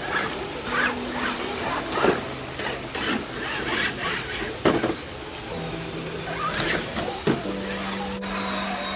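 Electric motors of scale RC crawler trucks whining at low, steady pitches that shift as the throttle changes, while they crawl over rocks. Scattered clicks and knocks of the trucks against stone, the sharpest about halfway through.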